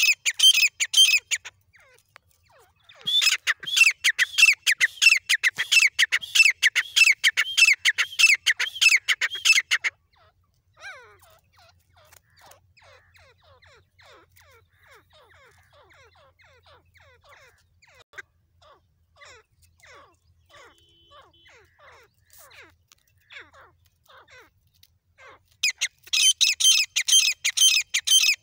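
Teetar (francolin) calling in loud, rapid runs of repeated notes, about four a second. There is a short run at the start and a long run of about seven seconds, then a long stretch of faint, scattered calls, and another loud run near the end.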